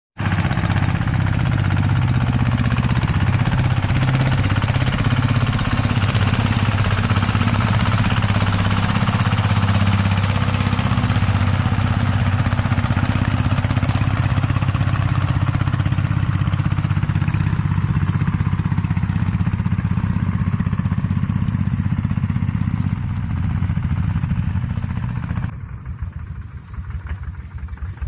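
Engine of a farm machine running at high revs with a lot of mechanical noise, then dropping abruptly to idle about 25 seconds in, its separate firing pulses audible.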